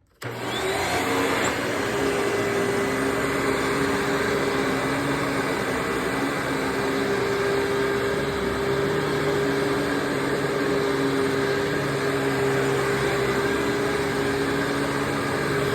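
Older Hoover WindTunnel bagless twin chamber upright vacuum with a Maytag motor, starting abruptly and running steadily: a loud, even rush of airflow with a steady motor hum under it.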